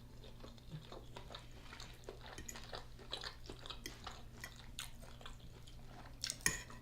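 Close-miked chewing of a mouthful of soft food, beef liver with rice and vegetables, with many small wet mouth clicks; a louder cluster of clicks near the end.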